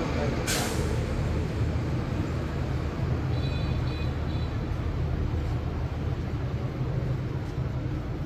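Steady low engine-like hum with background noise, and a short hiss about half a second in.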